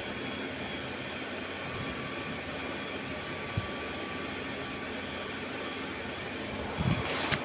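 Steady mechanical background drone with faint steady tones, like a running fan. There is a light click about halfway through and a brief rustle of wire being handled near the end.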